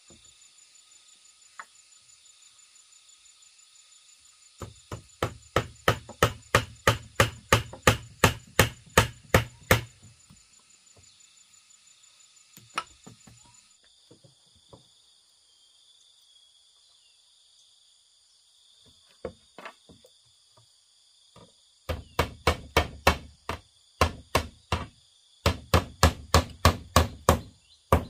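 A hand tool striking bamboo in quick runs of blows, about four a second: one run about five seconds in lasting some five seconds, then three shorter runs near the end. A steady high insect buzz sounds underneath.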